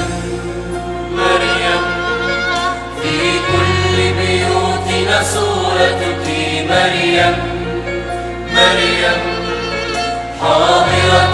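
Mixed church choir singing a hymn with instrumental accompaniment, a low bass note held under each chord and changing every few seconds.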